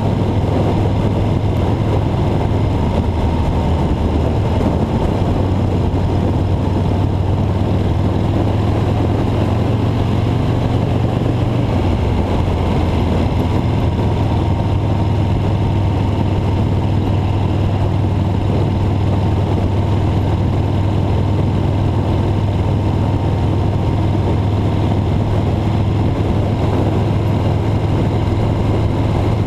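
Steady low engine drone and road noise of a vehicle driving at speed; the drone shifts slightly in pitch about twelve seconds in.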